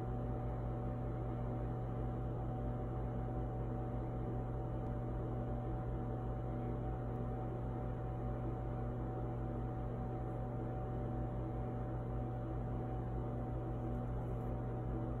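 Steady low hum with a faint higher-pitched tone above it, unchanging throughout.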